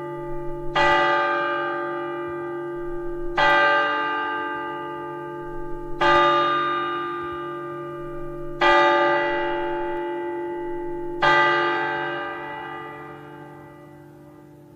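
A large bell tolling slowly: five strikes about two and a half seconds apart, each ringing out and fading before the next.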